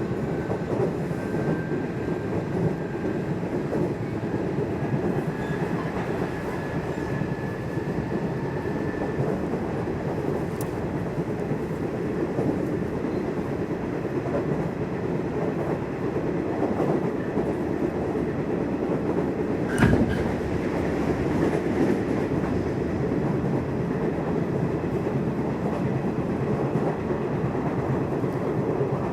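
Nishitetsu electric commuter train running on the rails, heard inside the car: a steady rumble of wheels on track, with a faint high tone over the first several seconds and a single sharp knock about twenty seconds in.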